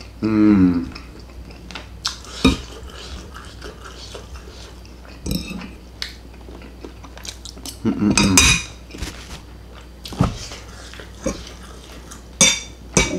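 Metal cutlery on ceramic plates: a fork scraping and clinking against the plate with a few sharp, ringing clinks, and near the end a knife and spoon set down on the other plate.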